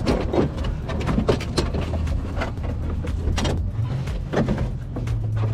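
Irregular plastic knocks and scrapes as a Banks Ram-Air scoop is slid and worked into place under the truck's front end, over a steady low hum that steps up in pitch about four seconds in.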